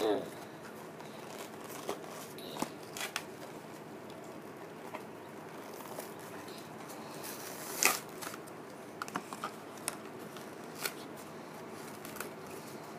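Hands tearing open and crinkling the wrapping of a small toy building-brick pack: scattered rustles and crackles, with a sharper, louder tear about eight seconds in.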